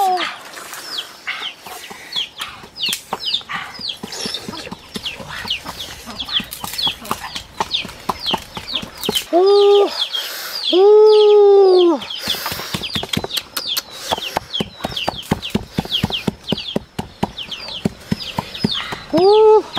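Domestic fowl calling: a steady run of short, high peeps, about three a second. A short and a long drawn-out call come about halfway through, and another long call comes near the end.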